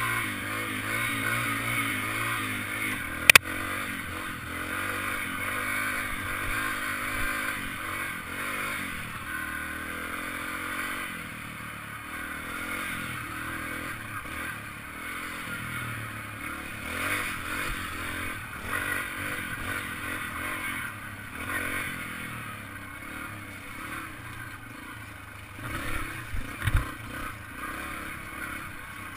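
Yamaha TT-R trail bike's single-cylinder four-stroke engine running on a dirt trail, its pitch rising and falling with the throttle, with the bike clattering over bumps. There is one sharp knock about three seconds in and a few low thumps near the end.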